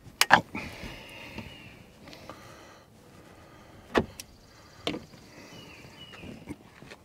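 Cab parts of a Kubota BX2380 compact tractor being handled as the cab is taken apart: a sharp clack with a scraping slide after it, then two more knocks and another short slide near the end.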